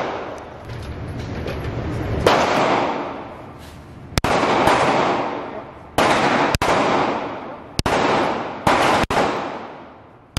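9mm pistol fired shot by shot, about seven shots a second or two apart, each with a long echoing tail off the walls of an indoor range.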